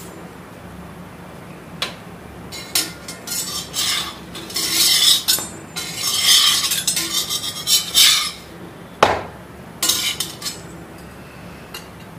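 Spatula scraping and clinking against a tawa griddle as a paratha is pressed and turned while it dry-roasts before any oil goes on. The sound comes in irregular bursts of scraping with a few sharp taps, the strongest tap about nine seconds in.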